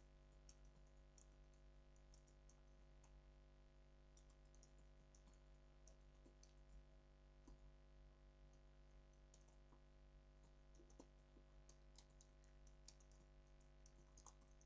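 Faint typing on a computer keyboard: irregular runs of light key clicks, over a low steady electrical hum.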